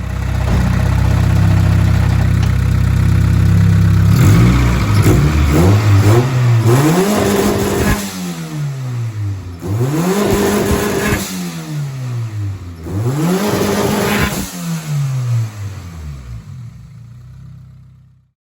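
Turbocharged Honda Civic's D-series four-cylinder engine running steadily, then revved three times, the pitch climbing and dropping back each time. It cuts off just before the end.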